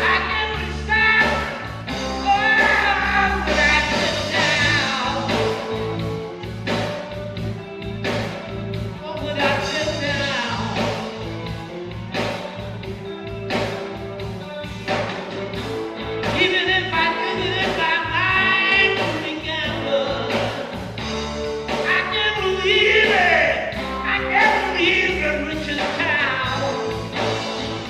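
Reggae band music with singing over a steady beat and bass line.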